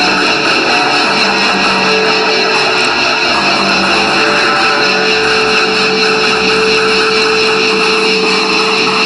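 Loud, dense band music led by distorted electric guitar, with a note held through the second half.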